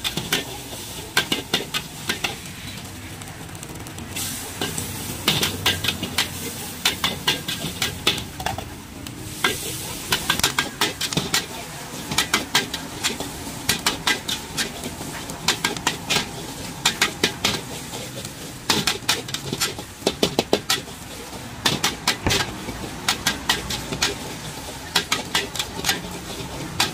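Metal wok spatula scraping and clanking against a black steel wok in quick, irregular strokes, over the steady sizzle of food stir-frying.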